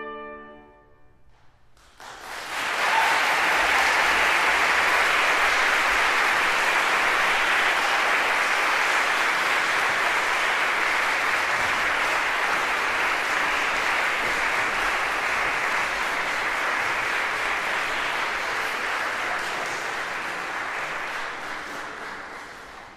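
The final trumpet note dies away. About two seconds in, an audience starts applauding, steady and sustained, and the applause begins to fade near the end.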